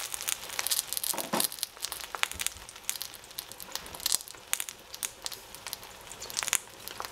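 Cubed eggplant frying in a stainless steel pot, crackling with scattered sharp pops.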